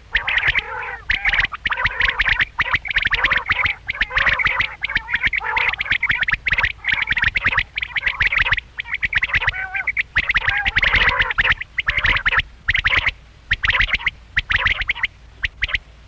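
Quail calling: a rapid, rasping chatter of many short notes in bursts of a second or two, with brief breaks between.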